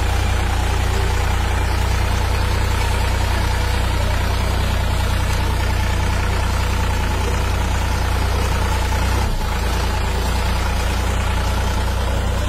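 Tractor engine running steadily with a deep, unbroken drone.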